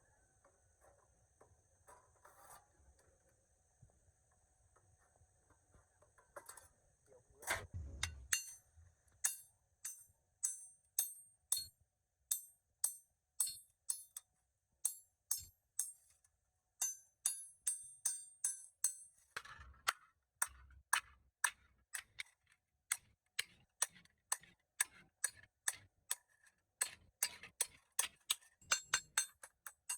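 Steady series of sharp, ringing metallic taps, about two to three a second, starting about eight seconds in after a faint low hum.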